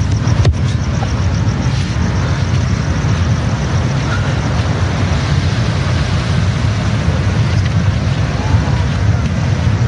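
Steady low rumbling outdoor noise with a hiss above it, level throughout, with a single sharp click about half a second in.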